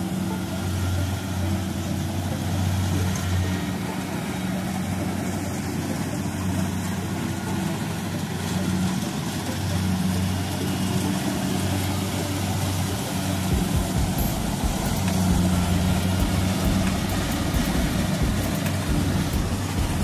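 Kubota DC70 rice combine harvesters running steadily while cutting rice: a diesel engine hum under the even noise of the cutting and threshing machinery. Irregular low buffeting joins in about two-thirds of the way through.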